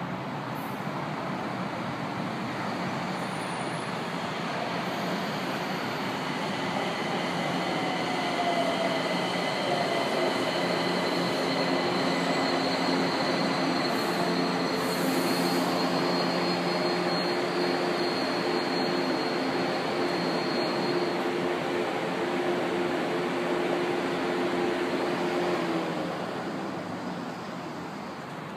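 São Paulo Metro train pulling into the station and braking to a stop. Its electric drive whines in several steady tones with a high-pitched whine above them, one tone falling in pitch as it slows. The whine stops about 26 s in as the train comes to a halt.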